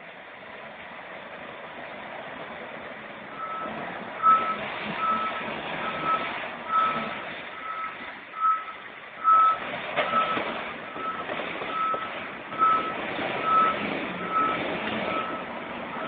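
Vehicle backup alarm beeping in a steady, even rhythm, a little more than once a second, starting a few seconds in, over the noise of heavy machinery.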